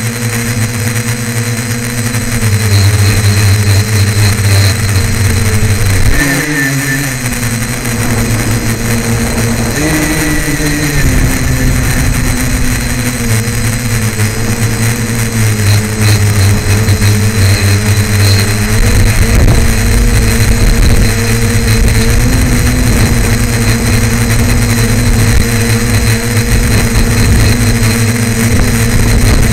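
Tricopter's three electric motors and propellers droning, heard from the craft itself, the pitch stepping up and down several times with throttle changes.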